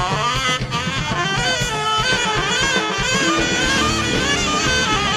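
Live ska band playing, with a horn section of saxophones and trombone carrying the melody over drums, bass and guitar.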